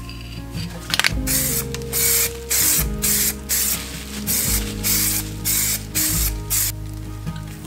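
Spray.Bike aerosol spray paint can hissing in a dozen or so short, quick bursts as paint is dusted onto a wooden axe handle.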